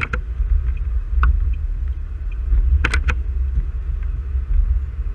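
Steady low rumble of a moving car heard from inside its cabin: engine and tyre noise on the road, with a few short sharp clicks, two close together about three seconds in.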